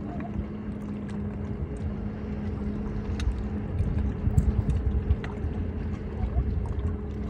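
Wind rumbling on the microphone and small waves lapping at a rocky sandy shore, with a steady low hum under it.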